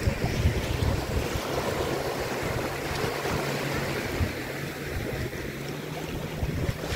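Small waves washing up on a sandy beach, with wind rumbling on the microphone. A steady low hum comes in about a second and a half in.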